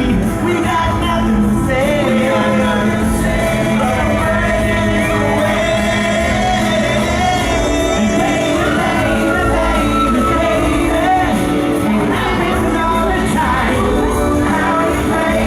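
Live pop boy-band performance: group vocals singing over an amplified backing band, with reverberation of a large hall.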